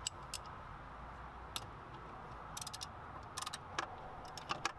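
Scattered light clicks and clacks of hands working the plastic plugs of a Honda Civic's engine wiring harness, coming more often in the second half, over a faint steady hiss.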